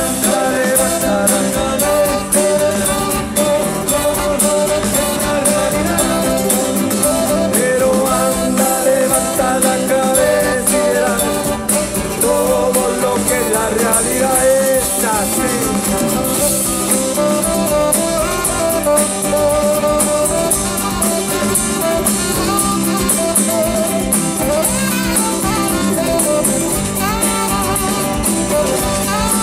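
Live band playing an instrumental passage of a Chilean folk-rock song: acoustic guitar and drums with horns and strings, a lead melody wandering over steady chords.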